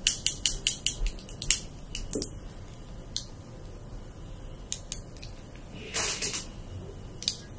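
Handling noise from a plastic wireless-earbud charging case: a quick run of sharp clicks and taps in the first second and a half, a few single clicks after, and a short scraping rustle about six seconds in as the case is opened and an earbud is lifted out.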